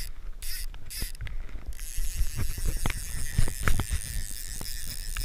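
Fly reel's click-and-pawl drag ratcheting: a few short bursts of clicks, then from about two seconds in a steady rapid clicking buzz, with some light knocks from handling.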